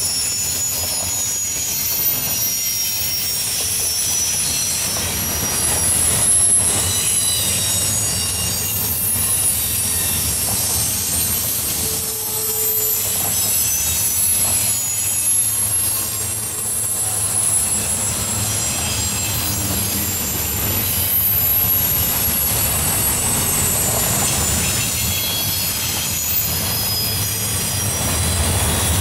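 Double-stack intermodal container cars of a freight train rolling past, steel wheels rumbling on the rail, with high-pitched wheel squeal that comes and goes over the steady rumble.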